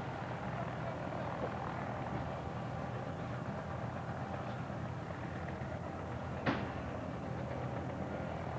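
Distant B-17 Flying Fortress flying past, its four radial piston engines making a steady low drone. A single sharp click comes about six and a half seconds in.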